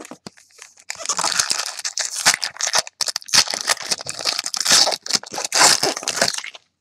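Foil wrapper of an SP Authentic football card pack being torn open and crinkled by hand. A dense crackle starts about a second in and stops shortly before the end.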